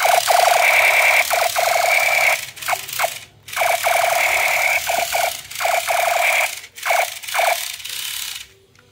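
Battery-powered light-up toy machine gun's electronic firing sound from its small speaker: a rapid rattling burst of shots over a tinny electronic tone. It comes in several bursts with short breaks between them as the trigger is pressed and released.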